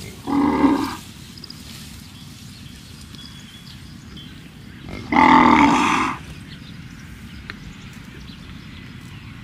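Cows mooing twice: a short moo about half a second in, then a longer moo about five seconds in, over a faint steady background.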